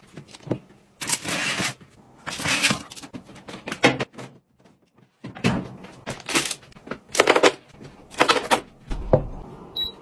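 Kitchenware being handled: a series of knocks, clatters and short scraping rushes as dishes, trays and lids are set down and moved. Near the end a touch-control panel gives a short electronic beep as it is pressed.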